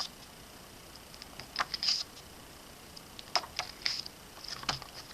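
Handling of a paper photo book: a few short clicks and brief rustles as pages are turned, with quiet between them.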